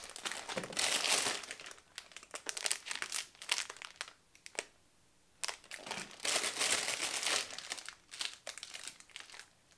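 Clear plastic cookie wrappers crinkling and rustling as they are handled. It comes in two long stretches with a short pause about halfway.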